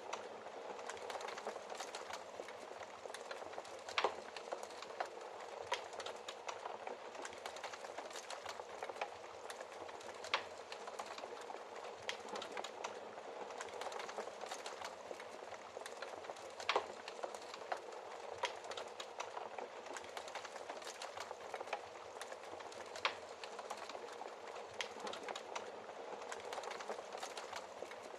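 Wood fire burning in a fireplace: a steady soft hiss with irregular crackles and pops, a few sharper pops standing out now and then.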